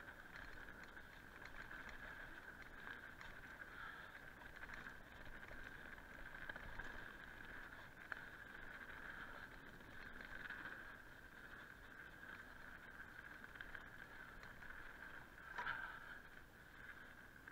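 Mountain bike running down a dry dirt singletrack: a steady high buzz from the bike with faint tyre and rattle noise, and a sharper knock near the end.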